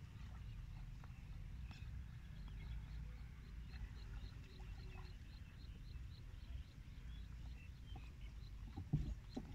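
Rural outdoor ambience: a steady low rumble under a regular series of short, high chirps, about three a second, from a small calling animal. A single thump near the end is the loudest sound.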